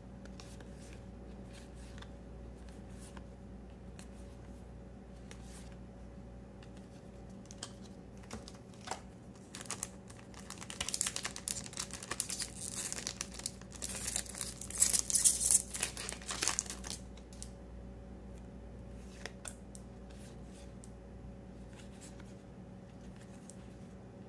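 A Cardfight!! Vanguard booster pack's wrapper crinkling and tearing as it is ripped open, loudest for several seconds in the middle. Before and after, cards are handled with faint ticks.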